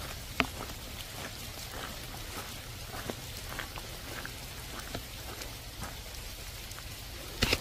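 Heavy rain falling steadily, with many sharp drop hits scattered through it. A louder hit comes about half a second in and another near the end.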